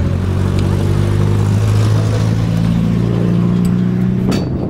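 An engine running steadily, its pitch rising a little about a second and a half in, then cutting off with a sharp click near the end.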